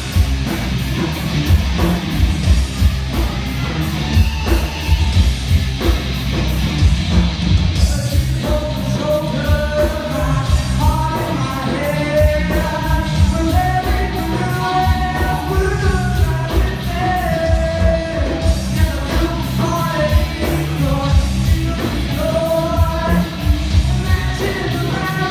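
Live rock band playing loud, heavy music with drums and guitar. A singer comes in about a third of the way through, singing and yelling over the band.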